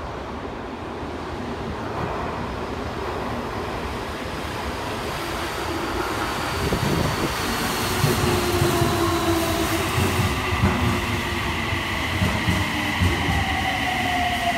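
Electric subway train pulling into an underground station. Its rumble and wheel clatter grow louder as it enters the platform about halfway through. Toward the end, high steady whines sound along with a whine that falls in pitch as the train slows.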